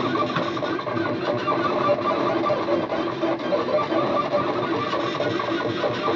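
Stepper motors of a home-built RepStrap 3D printer driving the print head at high speed, about 200 mm per second: a continuous whirring buzz whose motor tones change rapidly as the head moves.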